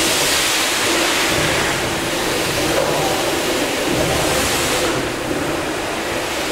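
Gimson steam beam engine hissing loudly as steam escapes, over the low rumble of the running engine. The hiss swells at the start and again about four seconds in.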